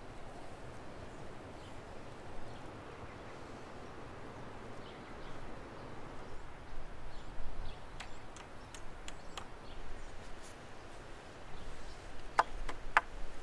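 Gloved hands lashing a wooden pole joint with wire: faint rustling and scraping over a quiet outdoor background, with a few sharp clicks near the end.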